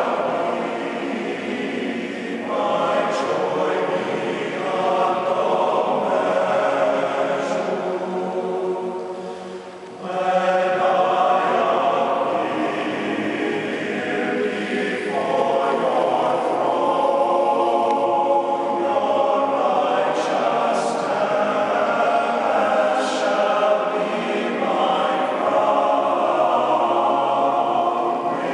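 A men's chorus singing a hymn in sustained four-part harmony, ringing on in a reverberant stone chapel. The sound thins and drops briefly about ten seconds in, then the next phrase comes in strongly.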